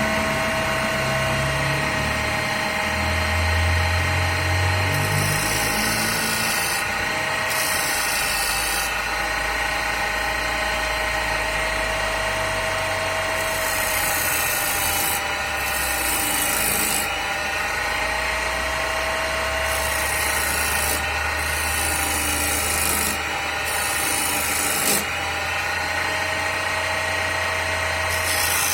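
Homemade wood lathe running with a steady motor hum and whine while a hand chisel cuts the spinning wooden blank, the cutting noise coming and going in repeated passes every few seconds.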